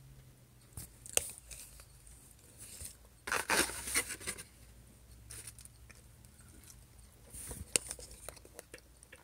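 Scattered sharp clicks and a short spell of rustling about three seconds in, over a low room hum.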